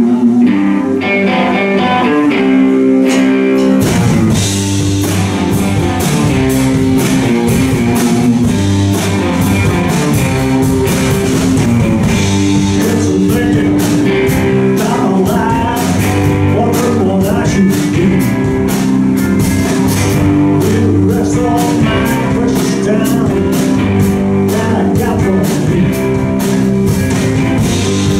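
Rock band playing live: an electric guitar plays alone, then drums and bass guitar come in about four seconds in and the full band plays on.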